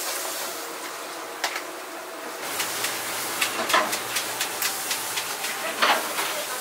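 Restaurant kitchen sounds: a steady hiss with several sharp knocks and clatters, and a faint low hum joining about two and a half seconds in.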